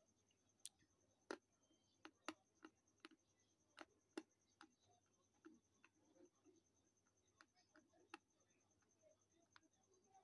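Faint, sharp, irregular crunching clicks, about a dozen spread through, from chewing something crisp with the mouth closed, over a faint steady high whine.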